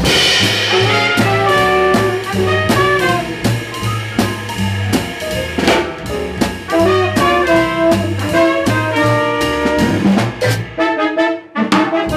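Live jazz quintet: tenor saxophone and trumpet lines over walking double bass, piano and a drum kit with ride cymbal and drum strokes. Near the end the bass drops out for about a second in a short break carried by the drums.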